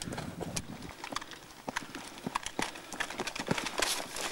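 Running footsteps on loose rocks and stony ground: irregular crunches and knocks of boots striking and scattering stones.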